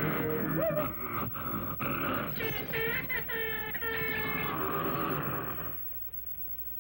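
Old cartoon soundtrack: a character's growling, shouting voice effects over the orchestral score, with a held note underneath. It drops to a faint hiss about six seconds in.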